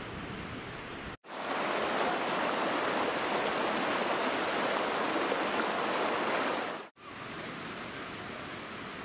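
Water gushing out of a drain pipe in a steady, loud rush that starts abruptly about a second in and stops abruptly about seven seconds in. Before and after it, a quieter steady rushing noise.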